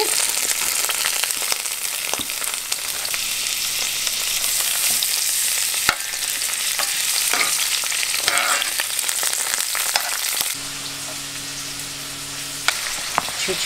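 Potato strips and grated carrot sizzling in oil in a frying pan, with a metal spoon scraping and stirring them against the pan. A steady low hum comes in for a couple of seconds near the end.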